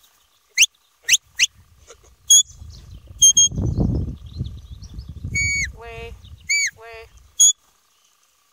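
Sheepdog handler's whistle commands to a working collie: a series of short sharp high whistles, first several quick upward flicks, then steady held notes, then twice a held note that drops at its end. Each of those two is followed by a short buzzy lower-pitched call, and a low rumble runs through the middle.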